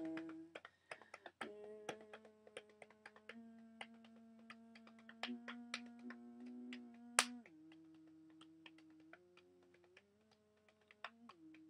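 Soft instrumental passage between sung lines: held chords that change every second or two, with many sharp clicks over them and one louder click about seven seconds in.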